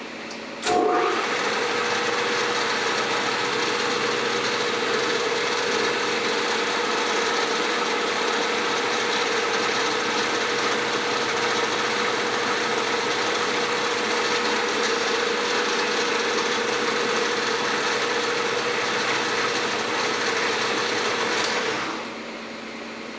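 Clausing-Colchester Model 13 engine lathe switched on about a second in, running with a steady whine over a mechanical hiss, then shut off near the end. A steady shop hum sits underneath.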